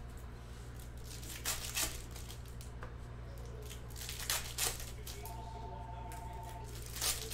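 Trading card pack wrappers being torn open and crinkled: short rustles in pairs, about every three seconds. A steady electronic tone sounds for about a second and a half in the middle, over a low steady hum.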